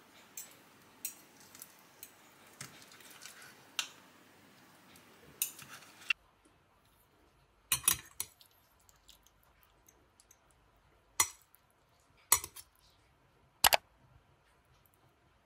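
Metal knife and fork cutting food on a ceramic plate: soft ticks and scrapes at first, then, after about six seconds, a handful of sharp clinks of metal against the plate.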